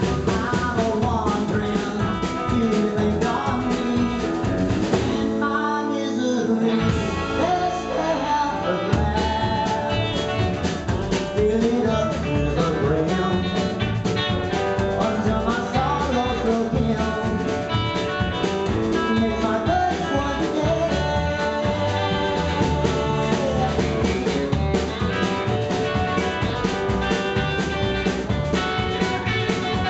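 A live country band playing: a man singing over electric guitar, upright double bass and drum kit. About six seconds in, the bass and drums drop out for a moment while the voice carries on, then the full band comes back in.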